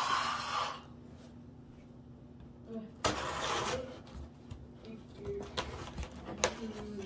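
Handling noise, most likely hands on a taped cardboard shipping box: two short bursts of rubbing and scraping about three seconds apart, then scattered light clicks and taps, over a faint steady hum.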